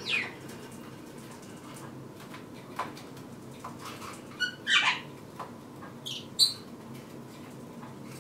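Pet budgerigars giving a few scattered short chirps and squawks, about six separate calls with gaps between them.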